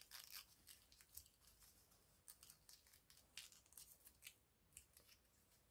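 Faint rustling and crinkling of a small sheet of origami paper being folded and tucked in by hand, in short irregular scratches.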